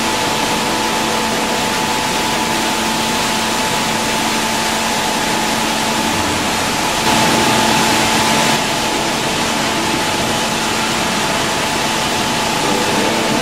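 Refrigerator recycling plant machinery running: a loud, steady noise with a constant hum and a higher whine. It grows louder for about a second and a half some seven seconds in.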